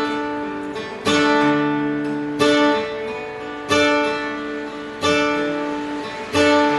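Acoustic guitar music: slow strummed chords, one about every second and a quarter, each left to ring out.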